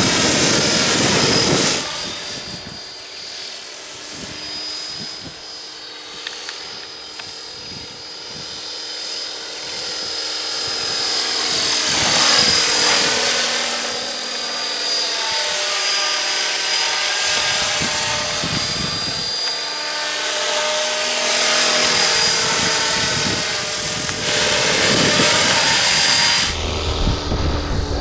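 Radio-controlled model aircraft flying, a steady high-pitched whine that swells into loud close passes at the start, about halfway through and twice near the end, the pitch dropping as it goes by.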